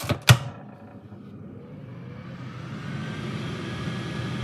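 Tower air fryer oven door pushed shut with two sharp clicks, then the air fryer's fan running with a steady whir that grows gradually louder as it gets going.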